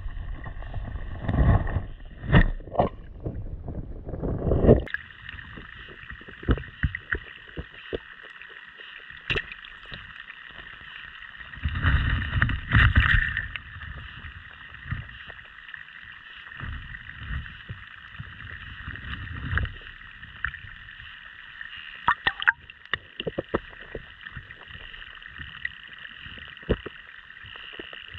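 Muffled water sounds picked up by a GoPro underwater: a steady hiss with dull knocks and low rumbling swells of moving water, heaviest in the first five seconds and again around twelve seconds in, with scattered small clicks.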